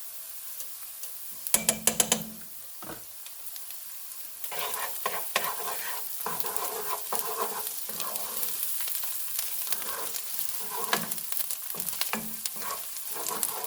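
Chopped peppers and onion with seasoning pastes sizzling in butter in a pot while a spoon stirs and scrapes through them. A quick run of sharp taps comes about two seconds in, and the stirring strokes keep on from about four seconds.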